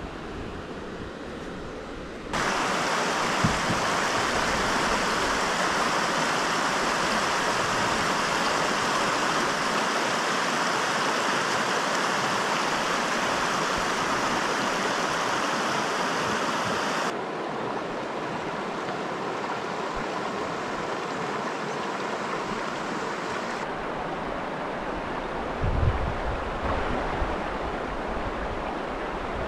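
Shallow river rapids rushing over rocks: a steady hiss of running water, loudest from a couple of seconds in until about halfway, then cutting to softer running water. A few low thumps near the end.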